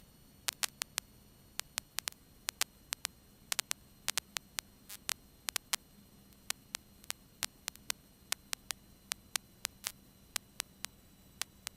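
Near-silent radio and intercom audio feed with no engine heard, broken by irregular sharp static clicks and crackles, a few a second, over a faint steady hum.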